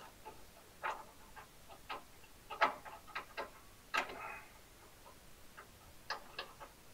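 Light, irregular metal clicks and clinks of a small steel bracket and bolt being fitted against a brake-pedal lever, with one slightly ringing clink about four seconds in.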